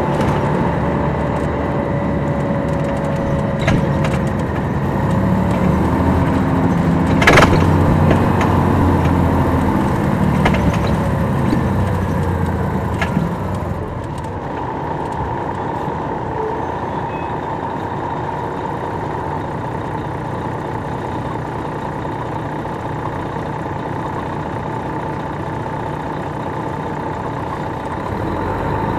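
Detroit Diesel Series 60 diesel engine of a 2002 MCI D4000 coach running, heard from the back of the cabin, with a steady whine. It pulls harder for the first part, with a few sharp rattles and clicks, and drops to a quieter, steadier run about halfway through.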